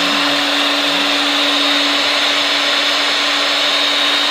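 Powerbor PB100E FRV magnetic drill's electric motor running steadily at speed after spinning up, with a high whine over a lower hum, turning the tap in reverse to back it out of the hole.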